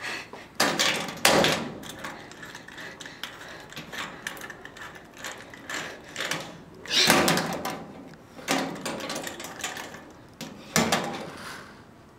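Hands working a combination padlock on a steel school locker: a run of small clicks and rattles from the dial and shackle, broken by several louder metallic clatters.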